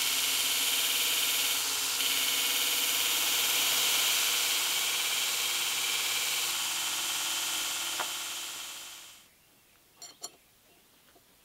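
Belt grinder running, its abrasive belt grinding the end of a stainless steel bar in a steady hiss. It stops about nine seconds in, and a couple of light clicks follow.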